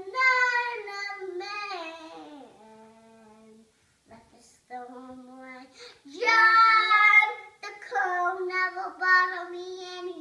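A young child singing unaccompanied in a high voice: drawn-out notes in several phrases with short pauses between them, the loudest phrase about six seconds in.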